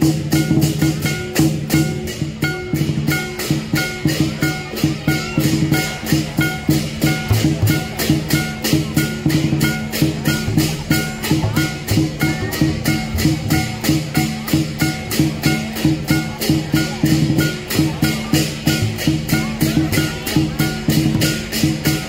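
Lion dance percussion: a big drum with clashing cymbals and a gong, beating a steady rhythm of about two and a half strokes a second over ringing metal.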